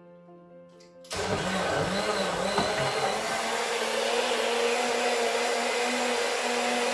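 Electric countertop blender switched on about a second in, its motor starting with a sudden loud whir that wavers in pitch for the first couple of seconds as it churns a milk and fruit smoothie, then runs steadily.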